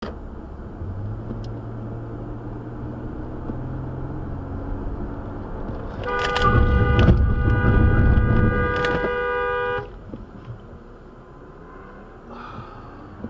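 Car road and engine noise inside the cabin. About six seconds in, a car horn sounds long and steady for nearly four seconds, with sharp knocks as it starts and again near its end: the sideswipe as the car is forced into the vehicle beside it.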